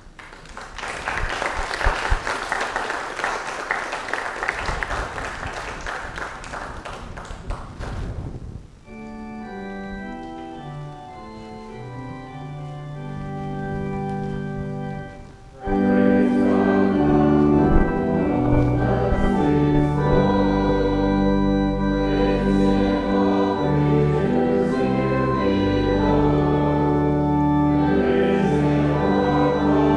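Congregation applauding for about eight seconds, then an organ playing slow sustained chords, growing much louder and fuller about sixteen seconds in.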